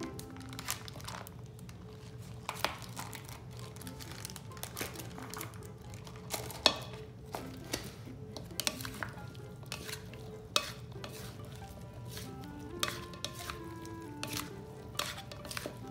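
Green plastic salad servers tossing a salad in a plastic bowl, making irregular clicks and knocks against the bowl, over quiet background music.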